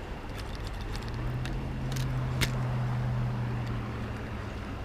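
Low, steady engine hum of a passing vehicle, coming in about a second in and fading near the end, with one sharp click midway.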